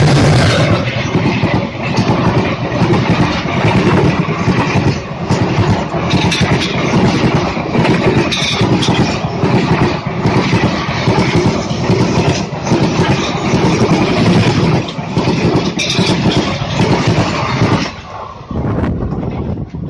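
Diesel-hauled Indian Railways express train passing close by at speed: a loud rush of wheels and coaches with a rapid clatter of wheels over the rails. It dies away near the end as the last coach clears.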